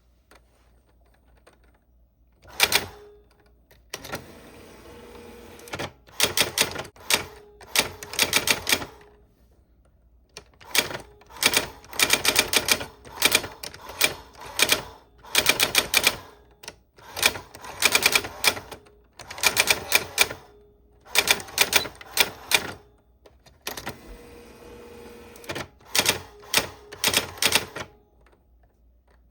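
Old manual typewriter being typed on: clusters of rapid key strikes separated by short pauses, starting about two and a half seconds in.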